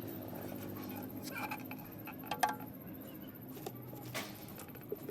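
Light metallic clicks and clinks, the sharpest about two and a half seconds in, over a low steady hum.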